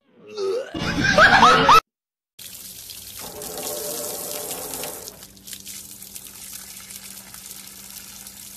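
A short, loud squeal that wavers in pitch, then after a brief break, water spraying steadily against a glass pane, easing off about halfway through.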